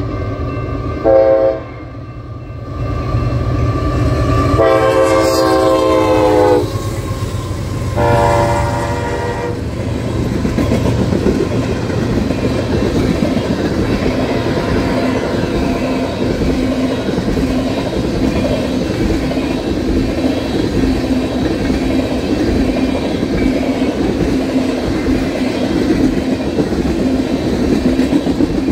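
Union Pacific freight train's locomotive horn sounding three blasts, a short one about a second in, a long one around five seconds in and a shorter one about eight seconds in, over the low rumble of the diesel locomotive. The train then runs past, a long string of tank cars with steady wheel and rail noise and clickety-clack.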